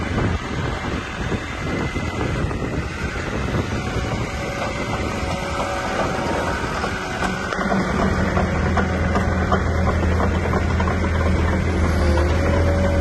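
The Cat diesel engine of a 2023 Cat 313GC hydraulic excavator idling steadily, with irregular crackling over it in the first half. About eight seconds in, a stronger, steady low hum of the engine takes over and the sound grows a little louder.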